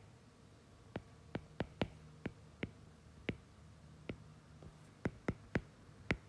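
A stylus tapping on a tablet's glass screen during handwriting: about a dozen sharp, irregularly spaced taps over a faint steady hum.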